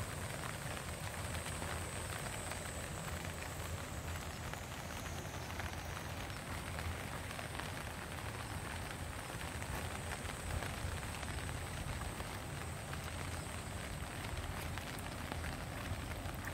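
Steady rain falling, with many small drop ticks, and a thin high steady tone running through it.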